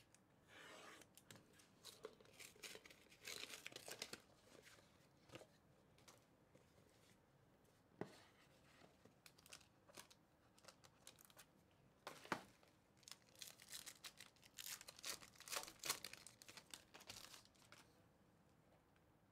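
Faint handling of a Topps Midnight UFC trading-card hobby box: cardboard rustling with a few sharp taps, then a foil card pack crinkling as it is torn open near the end.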